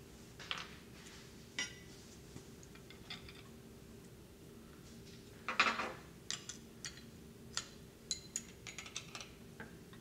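Steel wrenches clinking and tapping as they are picked up off a workbench and fitted onto an oil-burner nozzle assembly, a 3/4-inch wrench as backup and a 16 mm wrench on the nozzle. Scattered light clicks, with a louder metal clatter about five and a half seconds in and a run of small clicks after it.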